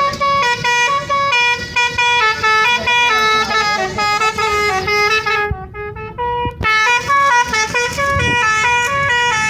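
Bus 'telolet' musical horn playing a tune: a run of loud, steady horn notes that change pitch in steps, broken by a pause of about a second a little past halfway.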